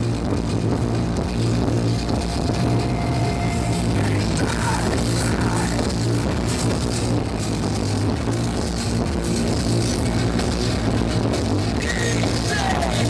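Industrial metal band playing live through a festival PA, recorded from inside the crowd: loud, dense distorted guitars, drums, heavy bass and electronics with no pause.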